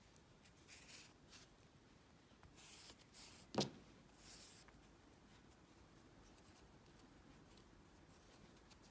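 Faint rustling and brushing of yarn and crocheted work being handled, in a few short strokes, with one sharp click about three and a half seconds in.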